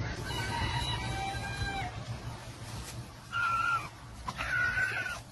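A chicken calling: a drawn-out call through the first two seconds, then two short squawks about three and four and a half seconds in, as it is grabbed and picked up.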